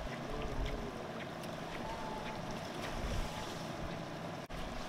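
Wind on the microphone over the sea, with a steady low rumble and faint wash of water below a fishing pier.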